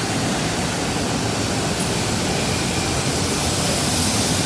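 Factory machinery on an insulated-glass production line running with a steady rushing noise, growing brighter and hissier near the end.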